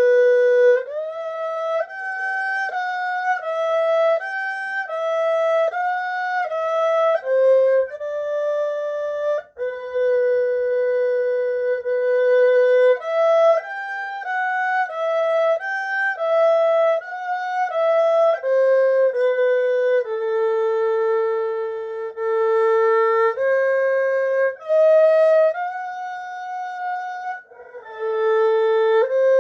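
Huqiu 5121 erhu played solo with the bow: a slow, single-line melody, some notes held for several seconds and some slid into from below.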